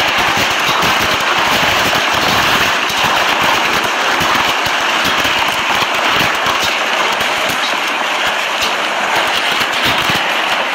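Heavy wind-driven rain from a tornado-spawning thunderstorm pelting down in a loud, steady hiss with a constant crackle of drops.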